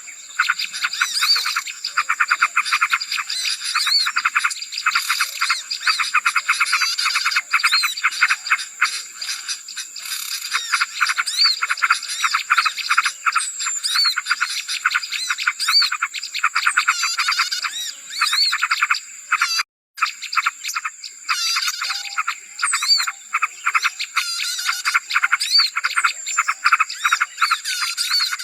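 Bird-lure call recording: a dense, noisy chorus of many small birds chirping and twittering rapidly, with a steady high-pitched whine behind it. The sound cuts out for a split second about two-thirds of the way through.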